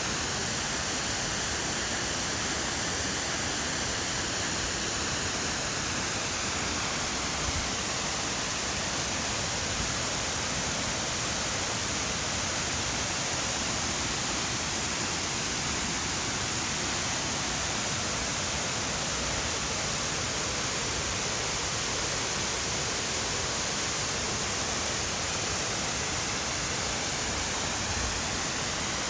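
Waterfall heard from close by at its base: a steady, unbroken rush of falling water.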